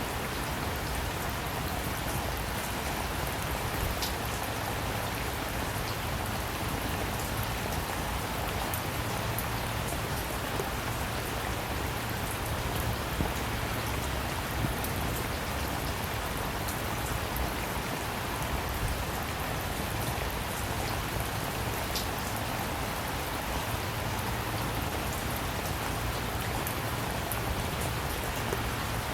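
Steady rain falling, with a constant hiss and many individual drops ticking on a surface.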